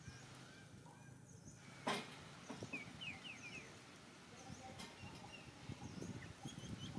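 Outdoor ambience with repeated short, high chirping calls over a faint steady hiss. A single sharp knock comes about two seconds in, and rustling and scuffling build near the end.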